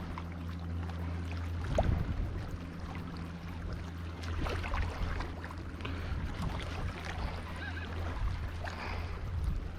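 Small waves sloshing and lapping against shoreline rocks, with scattered clicks and a louder splash about two seconds in, over a steady low hum.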